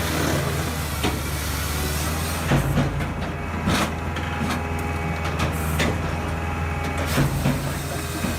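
Firewood processor running: a steady engine hum, with irregular knocks and clatter of wood being cut, split and dropped, about seven in all.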